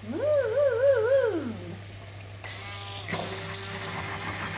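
A wavering 'oooh' tone that rises, trembles and falls away. About three seconds in, an electric immersion blender starts up and runs steadily in a pot of pumpkin soup, puréeing it.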